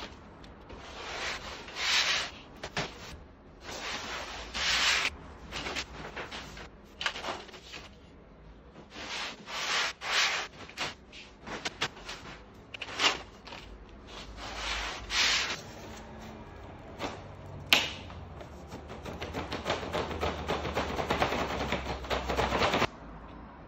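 Roller-shutter slats rubbing and scraping as the rolled curtain is handled: a run of irregular scrapes, then a longer, steadier rubbing near the end that cuts off suddenly.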